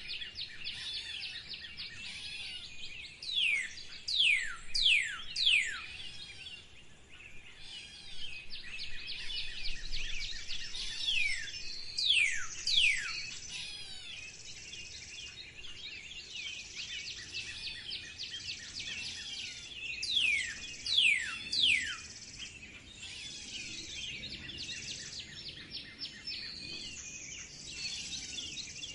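Many songbirds chirping together in a dense chorus. Over it, one bird repeats loud downward-sweeping whistles in runs of three or four, about every eight seconds.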